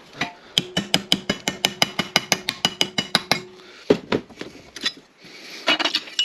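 Hammer tapping a piece of sheet steel to form a sharper bend on its corner: a quick run of about twenty ringing metallic strikes, about seven a second, then a couple of heavier knocks and a few more taps near the end.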